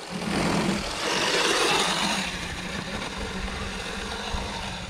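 Electric dirt bike pulling away under throttle: a steady low motor whine under a rush of drivetrain and tyre noise, loudest in the first two seconds, then easing off.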